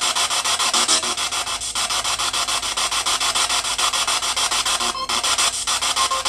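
Spirit box scanning through radio frequencies: a continuous stream of choppy static, chopped into even pulses several times a second, with faint brief snatches of tone.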